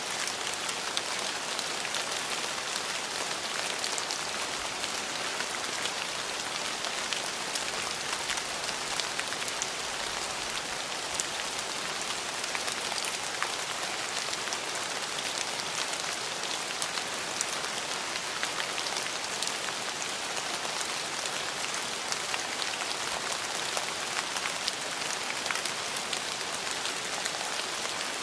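Steady rain falling, a constant hiss with many fine drop impacts and no change in intensity.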